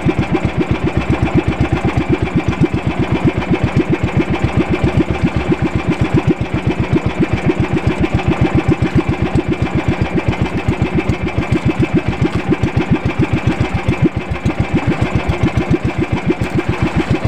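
Small fishing boat's engine running steadily with a fast, even chugging.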